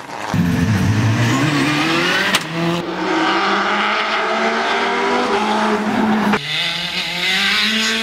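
Rally cars at full throttle on a tarmac stage, engines revving high with the pitch climbing through each gear, in several short passes that cut abruptly from one to the next.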